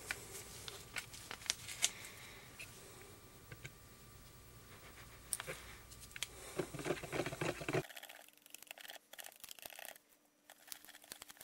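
A wooden stir stick scraping and knocking in a plastic mixing bucket as metallic pigment is stirred into epoxy resin, with small scattered clicks. The scraping gets busier about two-thirds in, then the sound changes abruptly to quicker, lighter clicks where the stirring plays back sped up.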